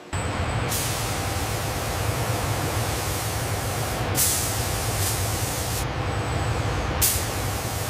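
Steady hiss of spray guns applying primer over a low machine rumble. The hiss turns brighter abruptly about a second in, again around four seconds and near the end.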